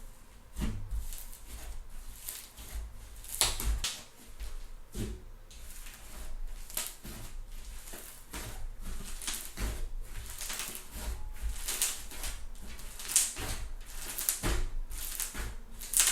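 Thick fluffy slime being squished, stretched and folded by hand, with repeated crisp pops and crackles as trapped air bubbles burst.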